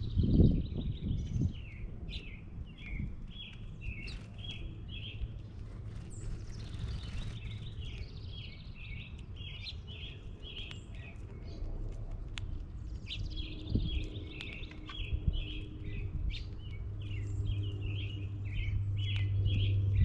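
Small birds chirping in quick series of short, repeated notes. Loud low thumps sound in the first second or so, and a low steady rumble builds near the end.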